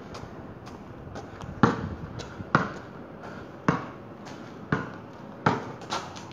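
A basketball bouncing on concrete as it is dribbled: about six sharp bounces at an uneven pace of roughly one a second.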